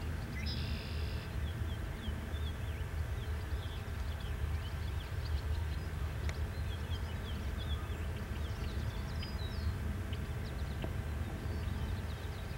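Low, steady rumble of a distant diesel locomotive hauling a freight train, with birds chirping over it.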